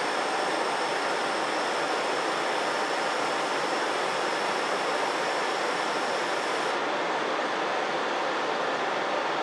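Handheld butane torch flame hissing steadily as it heats a dab rig's nail, shut off about seven seconds in. A steady rushing noise carries on under it and after it.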